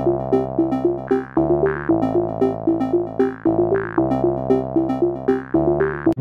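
Background synthesizer music: a quick repeating figure of short notes over held low chords that change every second or two.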